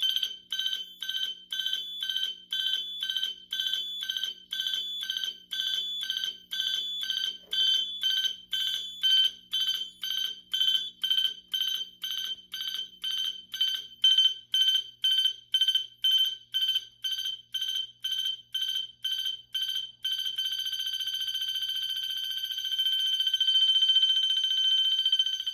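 Fire alarm sounder sounding in march-time pulses, about two a second, then switching to a steady continuous signal about 20 seconds in.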